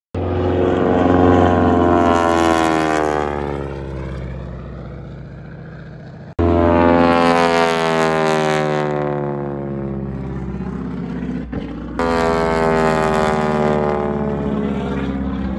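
Single-engine propeller aerobatic plane passing overhead: the engine and propeller note falls in pitch and fades as it goes by. This happens three times, with a fresh loud pass starting abruptly about six seconds in and again about twelve seconds in.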